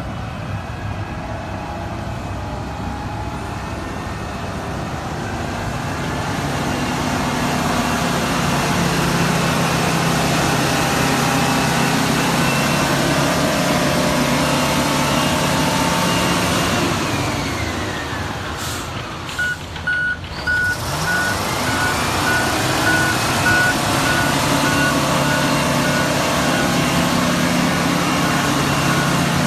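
Komatsu bulldozer's diesel engine running under load. About two-thirds of the way in, its pitch drops and then climbs again. From there on the reversing alarm beeps steadily, about one and a half beeps a second.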